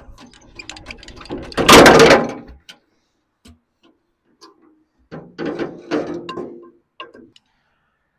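Small diesel engine of an old Benford dumper being hand-cranked with a starting handle in two short bursts, about two seconds in and again about five seconds in, without catching; the first burst is the louder. It has a newly fitted injector and is being started without easy-start ether.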